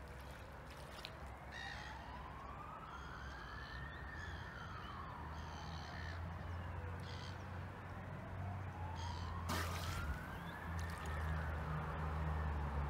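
A faint emergency-vehicle siren in a slow wail, rising and falling twice, over a steady low hum. A few short, high bird-like calls and a brief burst of noise about ten seconds in are heard with it.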